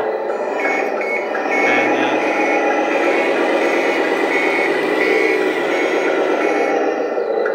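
RC tractor truck's onboard sound module playing a simulated truck engine through its speaker, running steadily and a little louder from about two seconds in as the truck drives, with a high reversing beeper sounding on and off.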